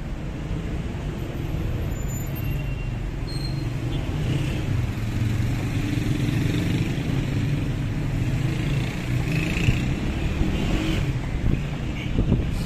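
City street traffic: cars passing with a steady engine and tyre rumble that grows louder over the first few seconds.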